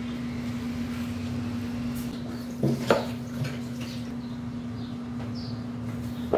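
Bread dough being worked in a plastic bowl, first stirred with a wooden spoon and then gathered by hand, with soft squishing and scraping and a couple of sharp knocks against the bowl a little under three seconds in and another near the end. A steady machine hum runs underneath.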